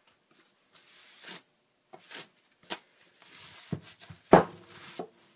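Hands moving books and materials about on a work table: several short rustling, sliding scrapes, then a hard object set down with a knock a little over four seconds in, ringing briefly.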